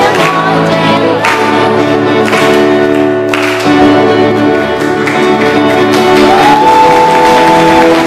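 A praise song: singing over instrumental backing, with long held notes and chords, and a voice sliding up into a high held note about six seconds in.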